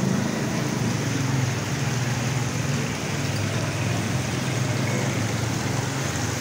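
Heavy rain falling steadily, an even hiss, with a steady low engine hum underneath.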